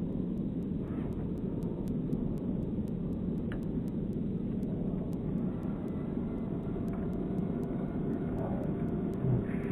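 The 3W 684 petrol engine of a giant CAP-232 model aerobatic plane, running in flight at a distance as a steady low rumble.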